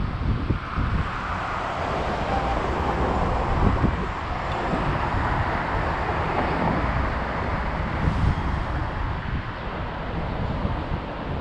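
City street traffic with wind noise on the microphone; a passing car's tyre and engine noise swells from about a second in and fades after several seconds.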